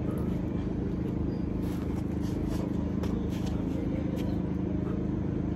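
Steady low mechanical hum with a few fixed low tones that never change, and a few faint light scuffs around the middle.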